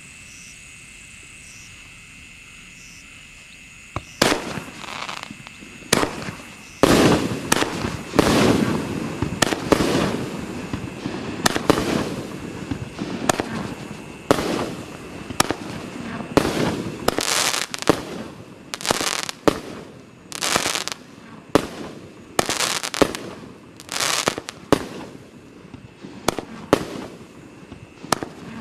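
A Klasek 'Pirati' 25-shot, 30 mm firework battery firing. Its shots launch and burst in a steady run of bangs, roughly one a second, beginning about four seconds in.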